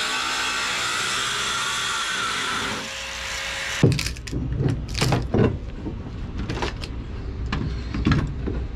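An electric angle grinder and a belt sander running together on wood; about three seconds in they stop. Then a long steel bar is driven into a rotten deck plank to break it out, giving irregular knocks and the cracking of splitting wood.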